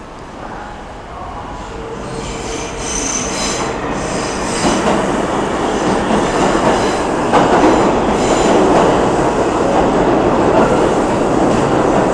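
New York City subway train in an underground station: metal wheels squealing high on the rails about two to four seconds in, then a rumble that builds steadily louder and holds near the end.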